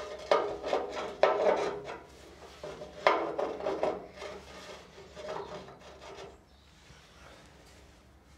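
Steel exhaust pipe sections scraping and rubbing as they are shifted into place: several rasping strokes with a slight metallic ring, dying away after about six seconds.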